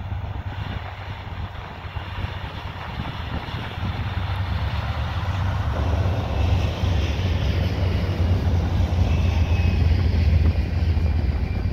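Freight train's diesel locomotives passing: a deep, steady engine rumble that grows louder over the first half and stays loud.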